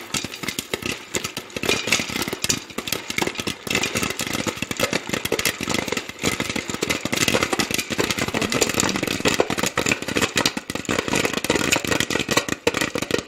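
Stovetop popcorn popping: a dense, rapid run of pops and crackles.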